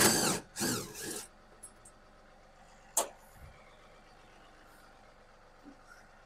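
Cordless drill running in two short bursts, its pitch shifting as it backs a screw out, then a single sharp click about three seconds in.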